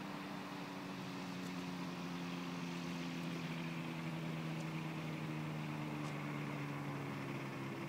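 Rotax 503 two-stroke engine of a Thruster TST microlight running steadily as the aircraft moves across the grass field.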